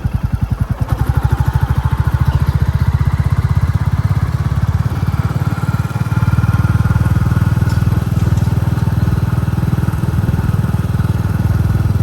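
Royal Enfield Classic 350's single-cylinder engine thumping under way, its beat quickening about a second in as the revs rise and then holding steady.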